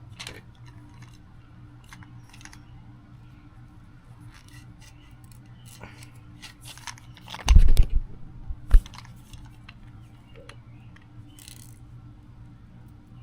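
Hands working on an aluminium-framed window screen: scattered small clicks and crunches, then a loud clatter about seven and a half seconds in and a single sharp knock a second later.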